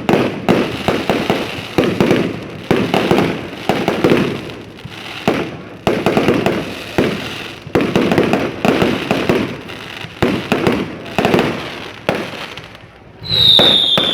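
New Year fireworks going off: a dense, rapid string of bangs and crackling bursts, several a second with each one trailing off. Near the end the bangs ease and a high whistle glides downward.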